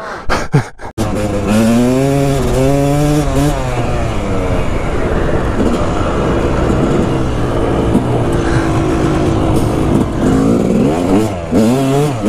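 Four-stroke dirt bike engine heard from on board while riding, revving up through the gears with its pitch climbing and dropping at each shift, then holding a steadier cruise before revving up again near the end, with wind rushing over the microphone. A few sharp clicks come in the first second.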